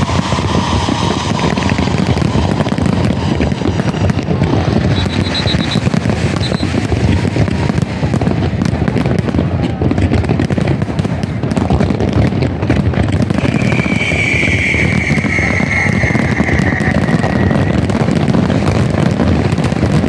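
Fireworks going off without a break: dense crackling and popping. A steady whistling tone runs for about four seconds partway through.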